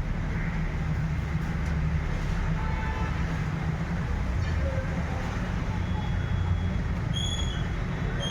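Steady low mechanical rumble, with a few faint clicks and short high tones partway through and near the end.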